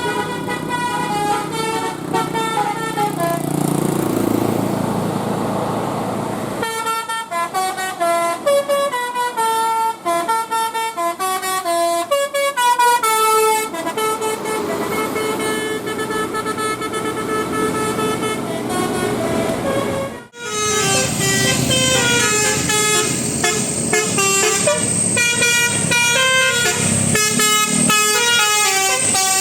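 Bus 'telolet' musical air horns playing quick stepping tunes of several notes, up and down like a melody. The sequence changes abruptly about 7 s and 20 s in, and a steady high tone rings over the last part.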